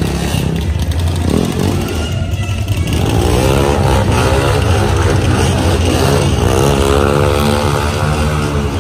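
Motor vehicle engine running loudly. From about three seconds in it settles into a steady pitched note that rises and falls slightly with the throttle.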